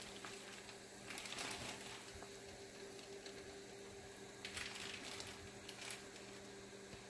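Faint steady hum with a few soft clicks and brief rustles.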